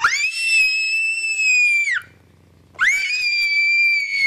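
Toddler girl screaming in fright at a toad held out toward her: two long, very high-pitched screams, the first over about the first two seconds, the second starting a little under three seconds in.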